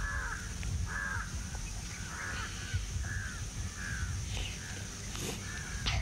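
A crow cawing over and over, short harsh calls about once a second, over a low rumble.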